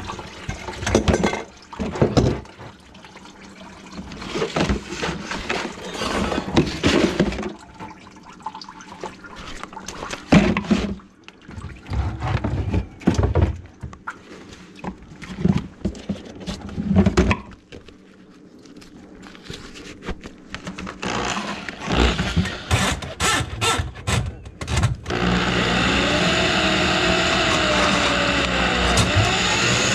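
Irregular knocking, clattering and water splashing as a bucket and drain parts are handled. About 25 seconds in, a Super-Vee drum drain-cleaning machine starts and runs steadily, spinning its cable drum to clear a grease-clogged kitchen drain line.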